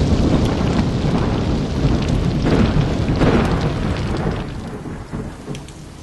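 Deep, thunder-like rumble with a rushing hiss, swelling twice in the middle and then fading away over the last two seconds.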